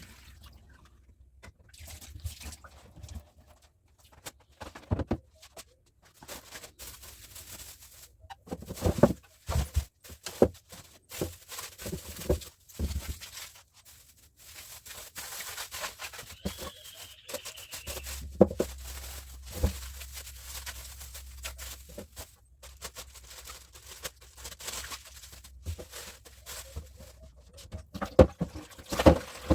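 Household items being handled and set down: scattered knocks, clicks and light clatter, with a low steady hum in the background from about halfway through.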